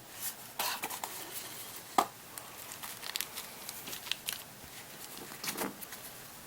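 Hands taking the contents out of a multi-tool's box: light rustling of packaging with scattered small taps and clicks, one sharper click about two seconds in.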